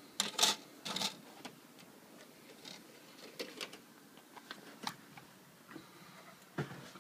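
A CD being put into a computer's disc drive: a cluster of clattering clicks and knocks in the first second, then scattered light ticks and clicks, with one stronger knock near the end.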